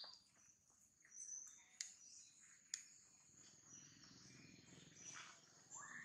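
Faint outdoor ambience: birds chirping over a steady high insect drone, with a few short sharp clicks.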